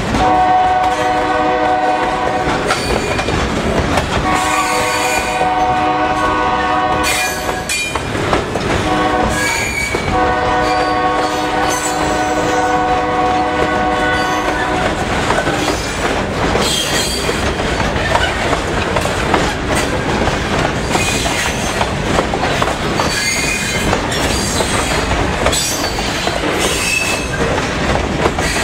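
Locomotive horn sounding from the head end of a passing freight train in four blasts, long, long, short and long, the pattern of a grade-crossing signal. Under it, and on after it, the steady rumble and clatter of hopper cars rolling by close at hand, with brief thin wheel squeals in the second half.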